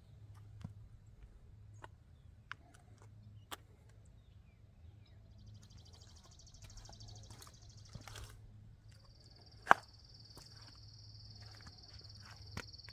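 Faint outdoor ambience: scattered light clicks and taps with one sharp click a little under ten seconds in, over a low steady hum. From about five seconds in, a high buzzing animal call, pulsing for about three seconds, then after a short break a steady high buzz to the end.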